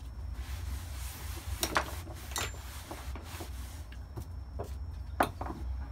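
A rag rubbing and a few sharp knocks, the loudest about a second and a half in and again near the end, as a brake caliper wrapped in cloth is wiped and handled on a wooden workbench. A steady low hum runs underneath.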